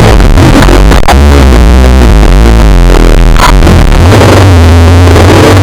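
Loud electronic intro music led by synthesizer, with heavy bass notes that change pitch every second or so.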